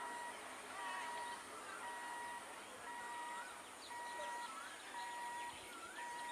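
Electronic warning beeper sounding a steady half-second beep about once a second, with birds chirping around it.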